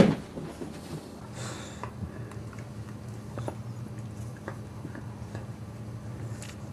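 A sharp knock at the very start, then boxer dogs play-fighting: a low, steady growl as the mother mouths her puppy, with light scuffling and small clicks.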